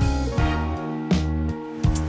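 Background music: a bass line and sustained chords with a beat of drum hits.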